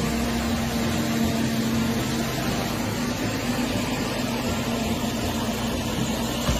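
Self-propelled forage harvester running steadily under load as its header cuts tall crop, an even mechanical rushing noise. A steady hum at one pitch drops away about two seconds in.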